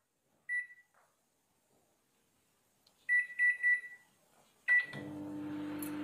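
LG convection microwave's keypad beeping as the cooking time is entered: one beep, then a quick triple beep, then one more. About five seconds in, the oven starts a cooking cycle and runs with a steady hum.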